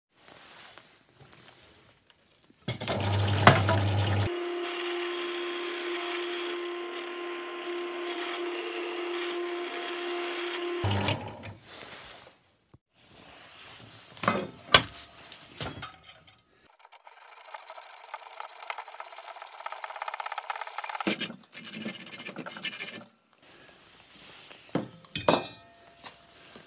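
Workshop tool work in separate bursts. First, a power tool runs steadily with a held humming tone for about eight seconds. Then come a few metallic knocks as a steel bench vise is tightened on a bolt, and then about four seconds of a steady, high hissing cut into the clamped steel bolt.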